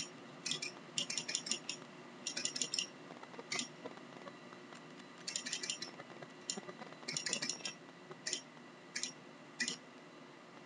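Zippo lighter's hinged metal lid being snapped open and shut rapidly while the lighter is shaken up and down, in quick runs of metallic clicks with single clicks between. This is the shaking that works overfilled lighter fluid onto the fingertip for the flesh-torch trick.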